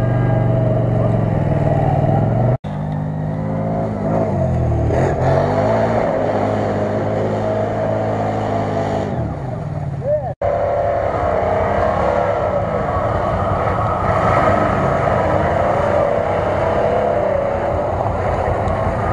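Off-road vehicle engines revving hard through mud and water, the pitch rising and falling with the throttle. The sound cuts off abruptly twice, and after the second cut a steadier, rougher engine sound takes over.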